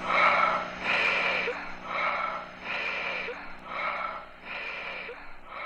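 Heavy, rasping breaths, about one a second, growing fainter.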